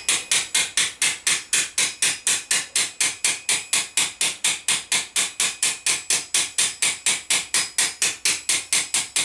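A flat-faced hammer peening a metal rivet head on an anvil in quick, even taps, about four to five a second. The hammer is working around the rivet to soften the edge of its flattened head.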